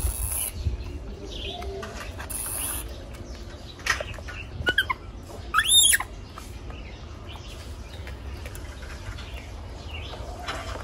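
Baby monkey giving a few short high-pitched squeaks about halfway through, the last one a rising-then-falling squeal.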